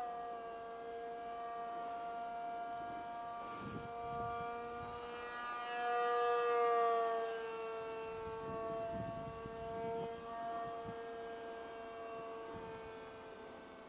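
Motor whine of a Multiplex Shark radio-controlled model plane in flight, a steady pitched drone that shifts slightly in pitch with throttle and grows loudest about six to seven seconds in as the plane passes overhead.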